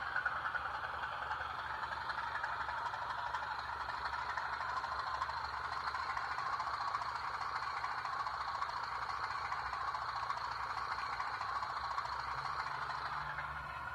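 Steam locomotive sound from the ESU sound decoder in an Albert Modell model of BDZ 06 059, played through the model's small speaker: a steady rushing noise over a low hum, which fades just before the end.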